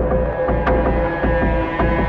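Background music: a low, pulsing beat with sharp percussive strikes and long held notes over it.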